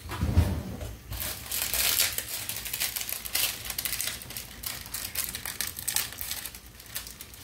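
A dull bump at the start, then a plastic seasoning sachet crinkling irregularly as it is handled and opened, from about a second in.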